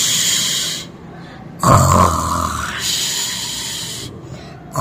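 Exaggerated play-acted snoring for sleeping puppet animals: a low rasping snore on the in-breath alternating with a long hissing out-breath, about twice.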